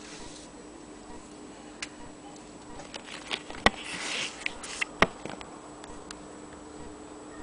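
Small metal clicks and knocks from handling the parts of an antique Maxfield Agenoria sewing machine, with two sharper clicks about halfway through and a second later, and a short scraping rub between them.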